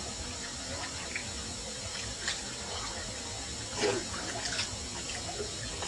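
Water trickling and dripping: a steady hiss with scattered small drips and splashes, the loudest a little under four seconds in.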